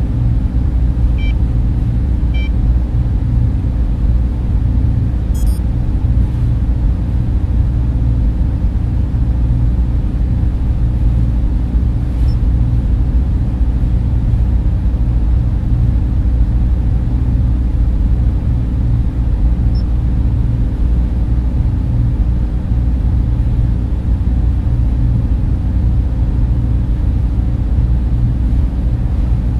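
Steady low rumbling hum of a sci-fi ambience soundscape, with two faint electronic beeps in the first few seconds and a few soft clicks later.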